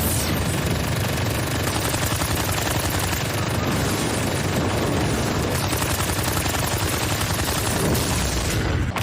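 Anime fight sound effects: a rapid, unbroken flurry of blows with a low rumble beneath, breaking off briefly just before the end.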